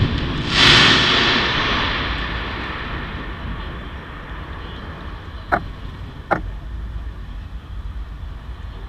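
A final firework burst about half a second in, followed by a crackling hiss that fades over a few seconds as the glittering stars burn out. Near the end two sharp clicks follow each other within a second: the camera's shutter. A steady low rumble runs underneath.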